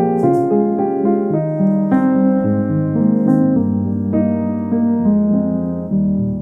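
Background piano music: a slow melody of sustained notes, one chord after another.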